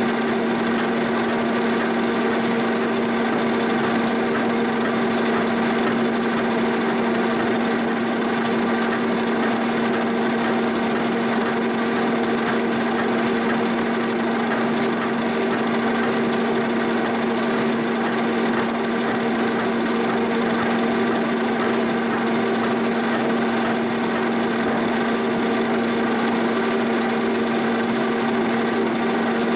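Milling machine turning a boring bar through the bore of a steel backhoe boom, cutting steadily with a constant pitched ring and its overtones.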